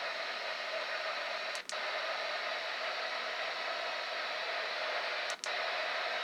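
Steady hiss of static from a NOAA weather radio receiver, broken twice by a brief dropout, about a second and a half in and near the end.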